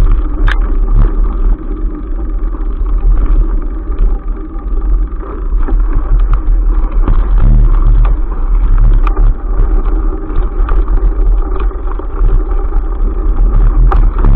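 Loud, steady rumble of a mountain bike rolling along a dirt forest trail, heard through a bike-mounted action camera, with a few sharp knocks as the bike and camera jolt over bumps.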